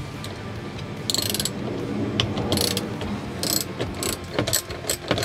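Socket ratchet wrench clicking in repeated short bursts as it is worked back and forth, undoing the bolts that hold a car's door mirror to the door.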